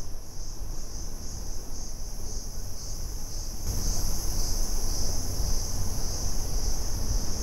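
Steady high-pitched droning of forest insects, growing louder about three and a half seconds in, over the low rumble of the moving vehicle.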